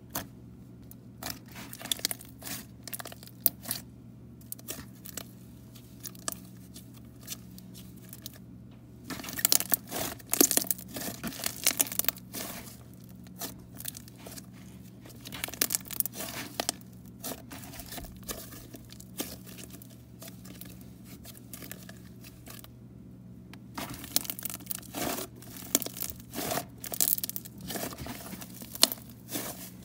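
Thick white slime being kneaded, pressed and pulled apart by hand, giving sticky crackles, small clicks and pops. The crackling is thickest about nine to twelve seconds in and again near the end.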